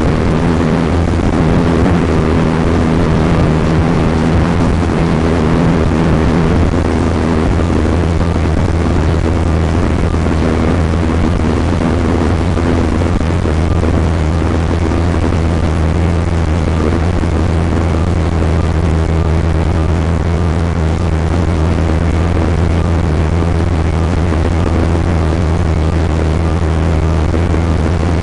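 A motor vehicle's engine droning steadily under an even rushing noise, with no change in pitch or level.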